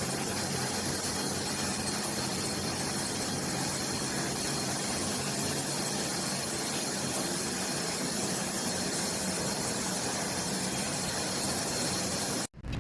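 A steady rushing noise with a low hum underneath, cutting off abruptly near the end.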